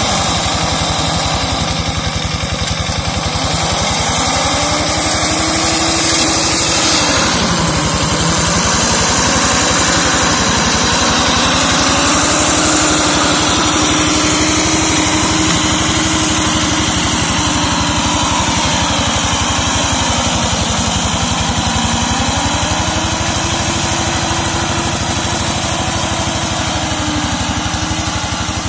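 Single-cylinder diesel engine of a walk-behind hand tractor running hard while it drives a brush-slasher mower through undergrowth. Its note drops briefly about seven seconds in and again around twenty seconds in, then picks back up, as the engine is loaded by thick growth.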